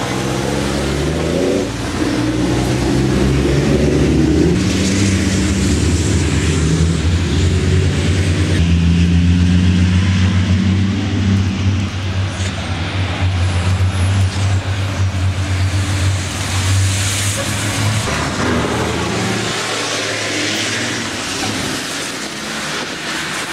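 Diesel engines of racing trucks running at speed as several pass through a wet corner, pitch rising and falling, with the hiss of tyre spray off the soaked track. The engines are loudest through the middle and fall away near the end.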